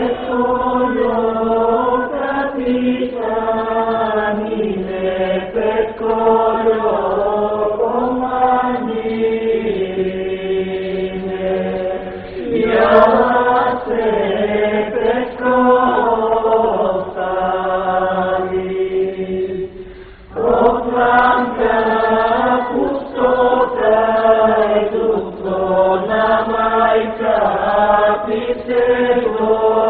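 Choir singing a slow song in long held notes, with a short break about twenty seconds in.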